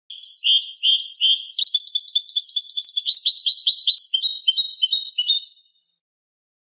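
European goldfinch singing: a fast, continuous run of short, high notes that starts abruptly and fades out about six seconds in.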